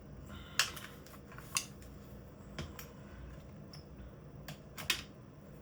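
Small clicks and taps of drill parts being handled while a worn carbon brush is swapped out of a cordless drill's motor: about half a dozen sharp clicks, the loudest about half a second in and near the end.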